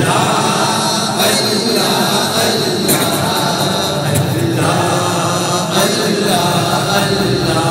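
Male voices chanting a devotional naat refrain, sung continuously without a break.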